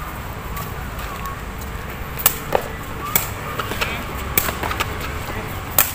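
Sepak takraw ball being kicked and headed in a rally: a handful of sharp slaps at irregular intervals from about two seconds in, over a low steady background.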